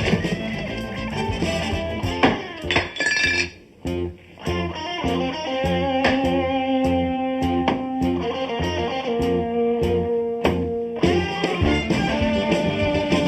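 Background music: an electric-guitar-led instrumental with a steady beat, which drops out briefly about four seconds in.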